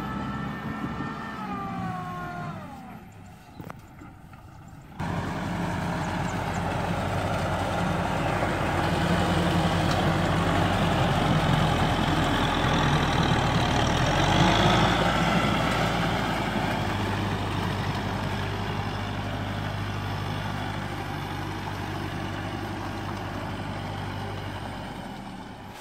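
Farm tractor's diesel engine running under load in a flooded, muddy paddy field. Early on one engine note falls in pitch and dies away. After a sudden cut about five seconds in, a louder tractor engine runs hard, loudest around the middle, then slowly fades as the tractor moves off.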